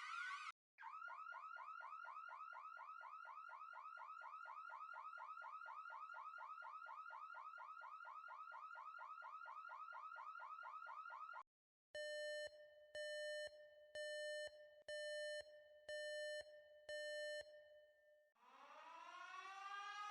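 A run of alarm sounds. The first is the tail of a fast warbling alarm, cut off just after the start. Then, for about ten seconds, comes an electronic alarm of rapidly repeating rising sweeps, several a second. Next are six evenly spaced steady beeps, and near the end a siren starts winding up, rising in pitch.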